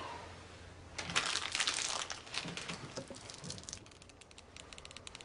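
A crumpled plastic snack wrapper crinkling. It crackles densely about a second in, then keeps giving off small crackling ticks that grow sparser as it lies on a wooden counter.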